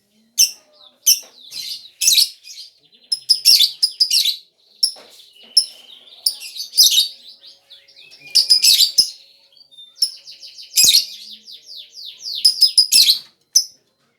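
Lovebird chattering: loud, high-pitched chirps and rapid runs of calls in short bursts with brief pauses between them.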